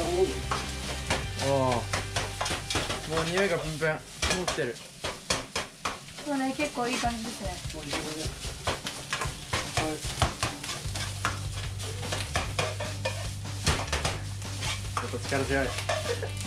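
Fried rice sizzling in a wok-style frying pan over a gas flame, with a spatula scraping and knocking against the pan again and again as the rice is stir-fried.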